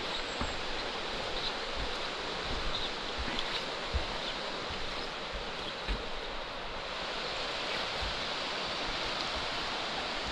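Steady rushing of a fast-flowing river, with a few soft low thumps.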